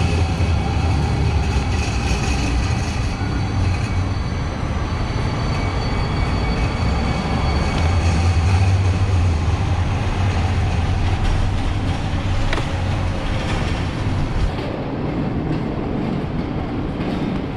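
Light rail train running past at close range: a steady low rumble with a few steady tones over it, easing near the end as the highest part of the sound drops away.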